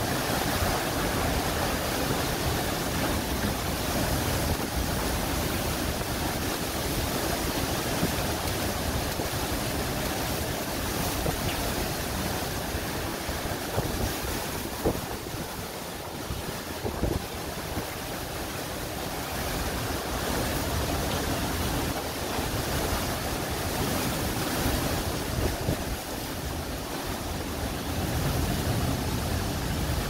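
Derecho winds and driving rain: a continuous, heavy rushing noise of wind tearing through trees, with rain lashing down.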